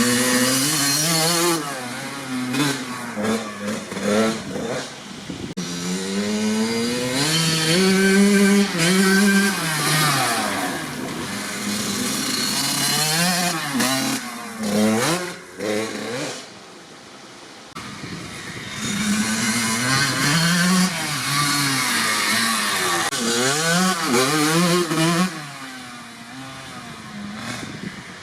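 1997 Kawasaki KX80's single-cylinder two-stroke engine, fitted with a DEP silencer, revving up and down over and over, its pitch climbing and dropping in quick sweeps. It eases off to a quieter, lower running twice, about halfway through and near the end.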